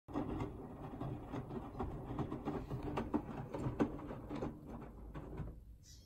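Hoover AXI front-loading washing machine tumbling a small load in water: irregular splashing and slapping of wet laundry in the turning drum, which dies down shortly before the end as the drum pauses.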